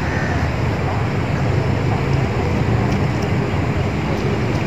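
Steady low rumble of road traffic mixed with wind buffeting the microphone, even in level throughout.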